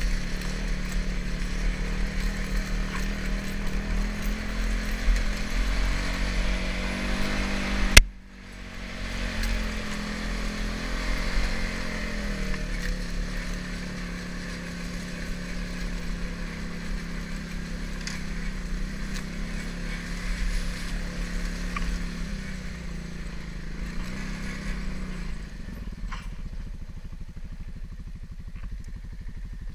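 TGB Blade 550SE quad's single-cylinder engine running under throttle along a rough trail. A sharp knock about eight seconds in is followed by the engine dropping off, then revving back up. Engine noise eases near the end as the quad slows.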